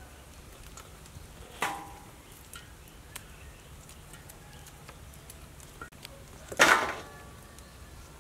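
Two sharp clattering hits with a short metallic ring: destemmed red chillies tossed into a metal basin. The first comes about a second and a half in, the second, louder one near the end. Faint clicks of stems being pinched off fall in between.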